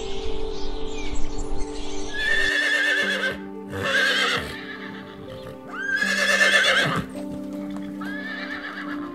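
Horse whinnying: three loud neighs, starting about two seconds in, and a fainter fourth near the end, over steady background music.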